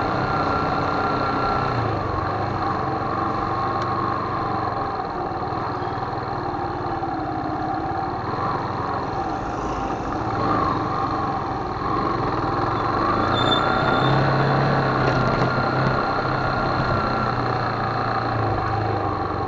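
Motorcycle engine running at low speed, its pitch rising and falling a little with the throttle.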